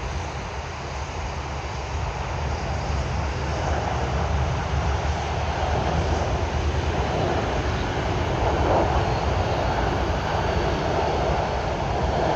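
Airbus A330 airliner's jet engines on approach to land, a steady rumble that grows louder as the plane comes closer.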